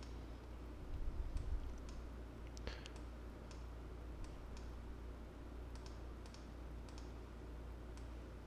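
Computer mouse clicking: a scattered series of sharp, light clicks, with a few low thumps about a second in, over a steady low hum.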